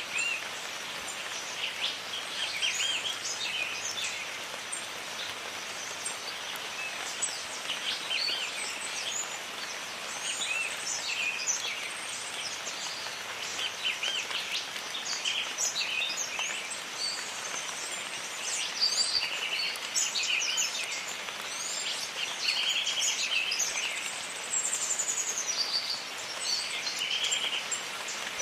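Jungle ambience: a steady hiss of rain with many birds calling over it, quick chirps, whistles and short trills overlapping throughout.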